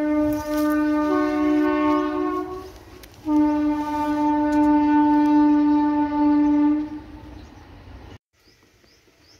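Two long, steady pitched blasts with a chord-like sound, a second higher note joining the first about a second in; the second blast lasts about four seconds, and the sound cuts off abruptly near the end.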